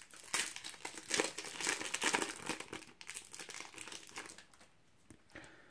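Foil Panini Euro 2016 card packet crinkling and rustling as it is handled and opened and the cards are pulled out. The rustling is busiest in the first couple of seconds and dies away after about four seconds.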